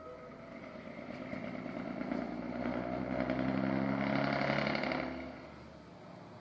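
Diesel railcar engine working hard as the railcar pulls away, its note rising slightly as it builds, loudest about four to five seconds in, then dropping off quickly and fading as it recedes.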